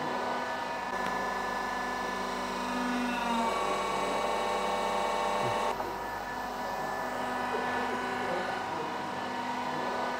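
Hydraulic press for camellia-seed cakes running with a steady whine made of several held tones. The pitch shifts upward about three seconds in as the press works, and the sound changes abruptly near six seconds in.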